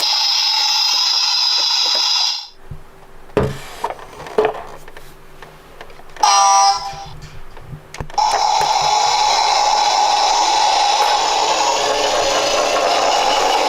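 Electronic sound from a toy minicar's small built-in speaker: a steady electronic tone stops a couple of seconds in. Then come a few clicks and knocks from the toy being handled and a short electronic beep about six seconds in. From about eight seconds a steady electronic tone plays again.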